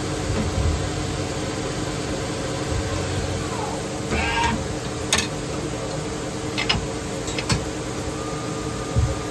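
Miyano BNJ-42SY CNC turning center running with a steady mechanical hum. Partway through there is a brief squeal that dips and rises in pitch, followed by several sharp clicks, and a steady higher whine starts near the end.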